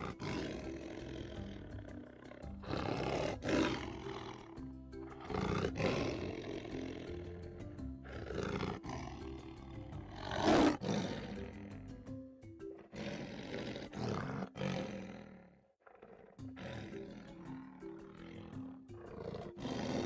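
Male lion roaring in a series of about six bouts, the loudest a little past the middle, over background music with steady held notes.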